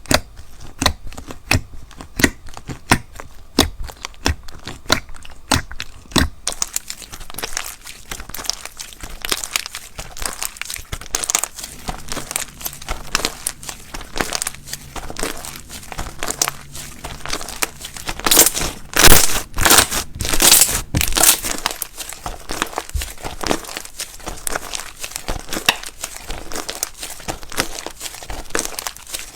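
Crisp crunching and crinkling of something brittle: sharp separate snaps at first, then about six seconds in a denser run of crackling, loudest in a cluster of crunches about two-thirds of the way through.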